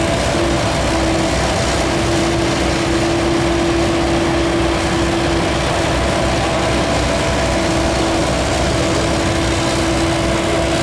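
CAT 308E2 mini excavator's diesel engine running steadily under hydraulic load, with a constant hum over the engine noise as the boom and Rototilt tiltrotator move the bucket.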